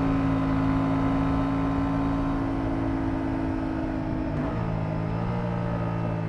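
Motorcycle engine running steadily under way at road speed, with wind rushing past. About four seconds in, the engine note briefly breaks and settles at a new pitch, as with a gear change.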